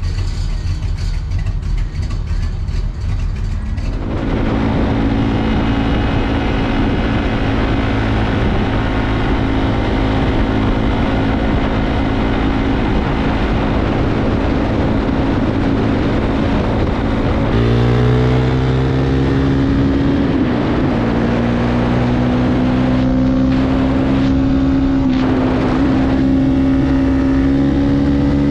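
Car engine and road noise while driving. About four seconds in the sound changes abruptly. Past the middle the engine note steps up and then climbs slowly as the car gathers speed.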